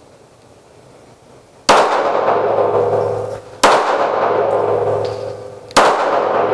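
Three handgun shots, about two seconds apart, each followed by a long ringing decay.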